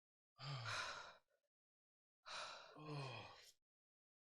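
A person letting out two heavy, voiced sighs, each a breathy exhale with a low falling groan, about a second apart: pained breathing through the burn of an extremely hot chilli challenge.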